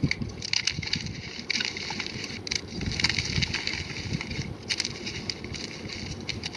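A block of gym chalk being crumbled, giving a dense run of dry, crunchy crackles and snaps that keep coming irregularly, with a few sharper cracks along the way.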